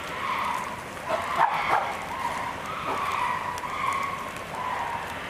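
Chimpanzees calling: a run of repeated hooting calls, one after another, with a louder, sharper call about a second and a half in.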